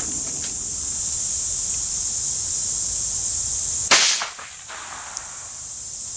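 A single sharp crack of a Walther P22 .22 LR pistol firing once about four seconds in, over the steady high-pitched chirring of crickets.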